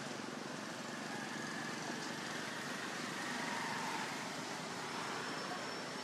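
Steady outdoor background noise with no distinct event, and a faint high whistle near the end.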